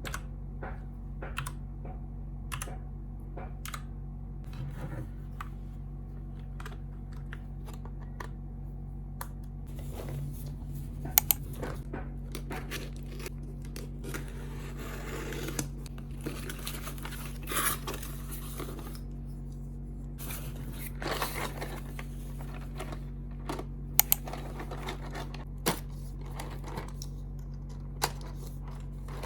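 Unboxing and handling of a keyboard and keycaps: scattered small plastic clicks and taps, a few sharper knocks, and stretches of packaging rustling and tearing, over a low steady hum.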